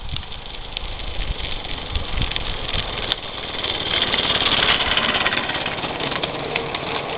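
Bellflower Cricket III live-steam garden-scale locomotive running past with a hissing exhaust, growing louder as it comes close about four seconds in, with scattered sharp clicks.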